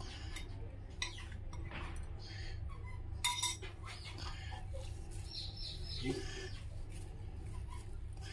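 A metal spoon clinking against a glass bowl a few times, with the sharpest clatter a little past three seconds in, over a steady low hum.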